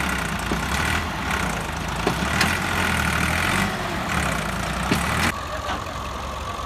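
Massey Ferguson 260 Turbo tractor's diesel engine running steadily under load as it tries to drag a loaded trolley out of deep sand, its rear wheels half buried. A few short sharp knocks sound over the engine.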